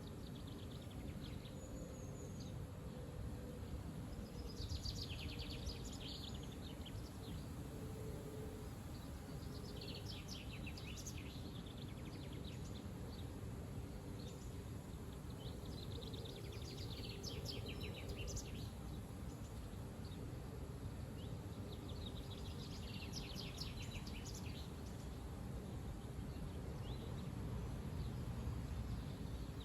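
Strong wind rumbling steadily on the microphone, with a small songbird singing four short, rapid trilled phrases a few seconds apart.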